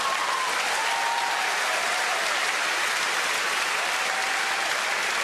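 Large theatre audience applauding, a dense, steady clapping that holds at the same level throughout.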